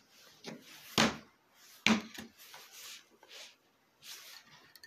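Handling noise on a wooden workbench as an oil feed pipe and oil can are picked up and positioned: two sharp knocks a little under a second apart, with small clicks and brief rustles after them.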